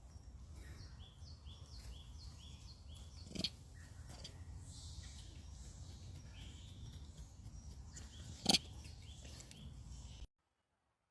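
Faint outdoor ambience with a steady low rumble and a run of short, high chirping calls repeating several times a second, broken by two sharp knocks. The sound cuts off abruptly near the end.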